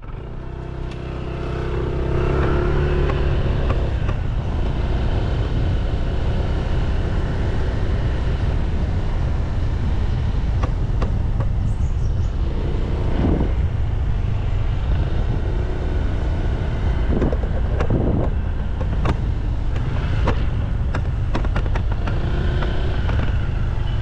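A motorcycle on the move: its engine runs under a heavy rush of wind across the microphone. The sound builds over the first two seconds, then holds steady.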